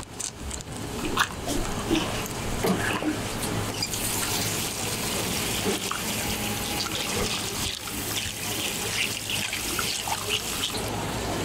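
Steady hiss of running tap water, growing fuller about four seconds in, over scattered sharp clicks and scrapes of a knife cutting through a fish head on a wooden board.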